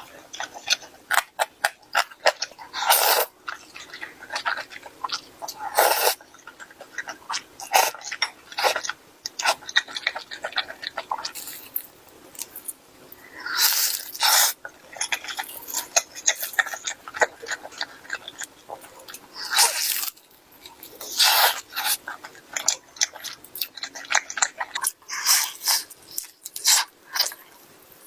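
Close-miked eating: crunchy bites and chewing, a dense run of short crackles with several louder bites spread through.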